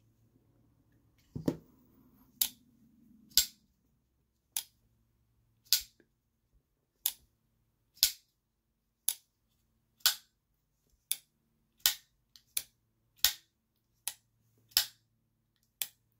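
CRKT Brian Tighe Fighter button-lock folding knife being flicked open and closed over and over: a sharp click about once a second, some sixteen in all, as the blade snaps into lock and back shut. A softer rustle of handling comes in the first few seconds.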